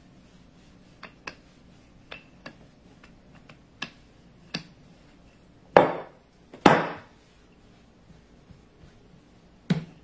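A wooden rolling pin knocking lightly on a floured wooden counter as biscuit dough is rolled out. Two louder thumps come about six seconds in as the dough is patted and pressed into shape by hand, with another knock near the end.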